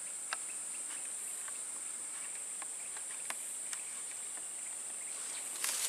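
Steady, high-pitched chorus of swamp insects, a continuous even drone, with a few faint scattered ticks.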